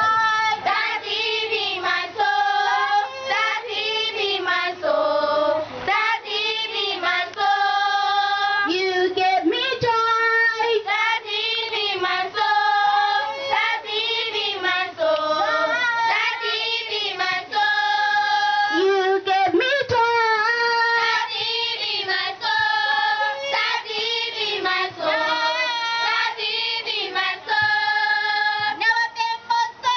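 A group of children singing a song together in chorus, in steady phrases of held notes with no break.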